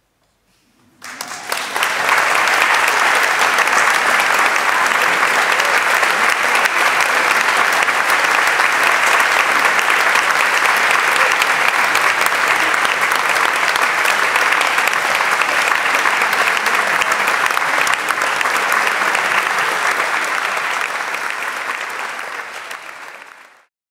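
A concert audience applauding, starting about a second in after a moment of silence and dying away near the end.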